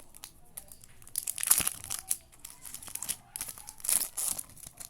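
Magic: the Gathering booster pack's foil wrapper being torn open and crinkled by hand, with crackles and two louder rustles about one and a half and four seconds in.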